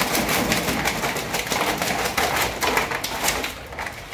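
Live southern rock lobsters' spiny shells and legs scraping and clattering against the plastic mesh crate as they are handled, a dense run of small clicks and scratches.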